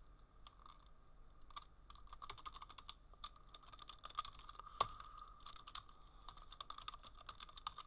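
Computer keyboard typing: quick, irregular key clicks, with one louder keystroke about five seconds in, over a faint steady background tone.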